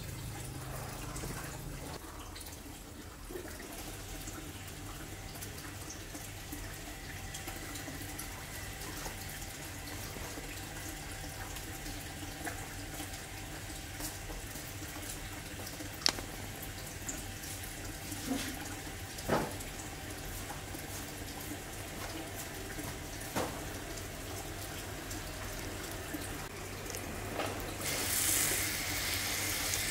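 A steady low hum with occasional soft clicks and taps as hands work potting mix in a small plastic pot. About two seconds before the end, a hiss of fine water spray from a nozzle wetting the soil.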